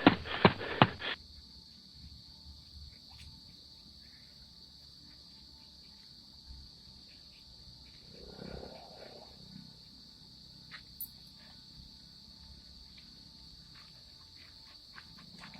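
Quick running footsteps, about four or five strides a second, that stop about a second in. After that, a steady high-pitched insect drone carries on, with a brief rustle around the middle and a few faint clicks.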